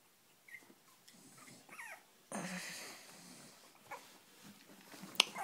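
Cavalier King Charles Spaniel puppies whimpering in short, wavering high squeaks, about half a second in, near two seconds and again at the end. A burst of rustling comes just after two seconds in.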